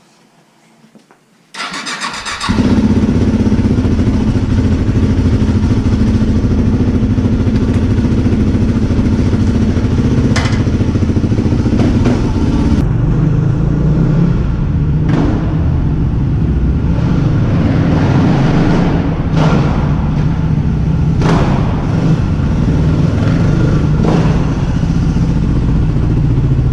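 Yamaha WR250X's 250 cc single-cylinder four-stroke engine electric-started: the starter cranks briefly, the engine catches about two seconds in, then runs loud and steady at idle. Its note settles lower about halfway through, with a few brief blips.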